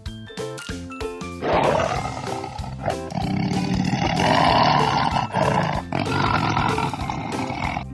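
Lion roaring in three long bouts, starting about a second and a half in, over light children's background music that plays alone at first.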